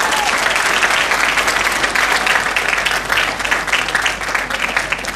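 Audience applauding steadily at the end of a sung worship song.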